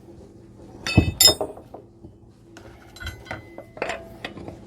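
Metal tools clinking and ringing: two loud clinks about a second in, then lighter clicks and knocks.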